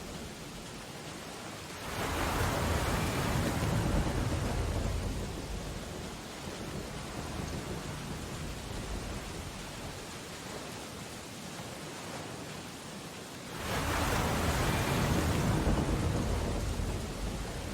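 Storm ambience: steady rain on window glass, with two heavy crashing swells, one about two seconds in and another near the end, each rising suddenly and dying away over a few seconds.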